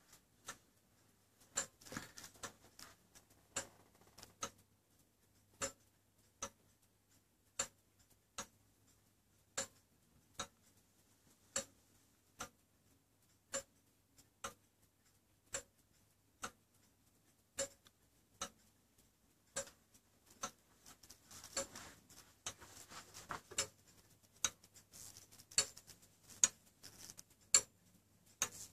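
Longcase clock's eight-day weight-driven movement ticking steadily, its anchor escapement and seconds pendulum giving about one tick a second. The ticks grow louder near the end, with some rustling handling noise.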